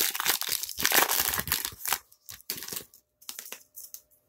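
Foil wrapper of a baseball card pack crinkling and tearing as it is opened, dense for about two seconds, then fainter scattered rustles and clicks as the cards are handled.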